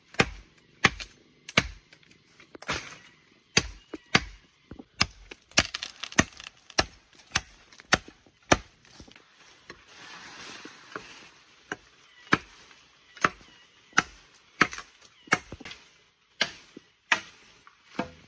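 Wood being chopped with a blade: a steady run of sharp strikes about two-thirds of a second apart, broken by a pause of about three seconds near the middle.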